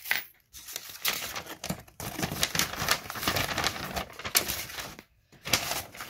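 Paper instruction sheets and a flat cardboard insert rustling and crinkling as they are handled and slid about in polystyrene packaging, in uneven spells with two short pauses, one just after the start and one about five seconds in.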